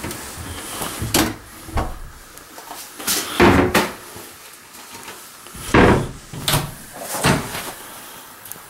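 Wooden cabinet doors and interior doors being opened and closed by hand, with a lever door handle clicking: a string of knocks, clicks and bumps, the loudest about three and a half and six seconds in.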